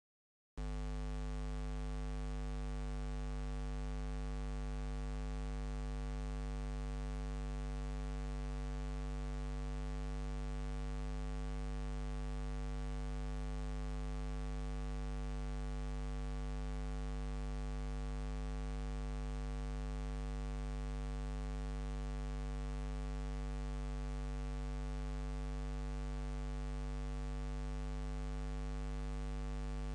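Steady electrical mains hum with hiss, a low buzz with many overtones that never changes, starting abruptly about half a second in after dead silence.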